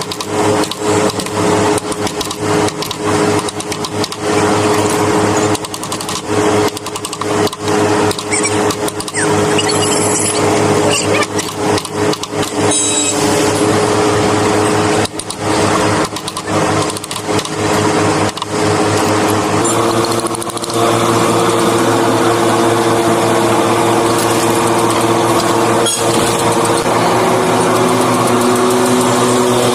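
Electric power carving tool running and cutting into wood, its motor hum broken by many short interruptions in the first two-thirds, then running steadily at a slightly shifted pitch from about twenty seconds in.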